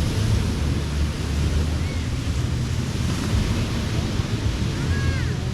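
Ocean surf washing steadily onto Waikiki Beach, with wind buffeting the microphone in a low, fluttering rumble.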